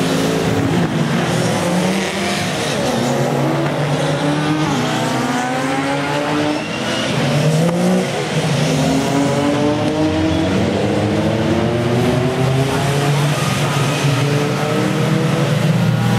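Sports saloon racing cars passing at speed in a pack. Several engines run loud at once, each pitch climbing and then dropping back again and again as the cars go through the gears and past.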